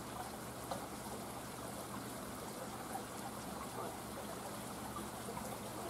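Steady background hiss with a faint low hum and a few soft ticks.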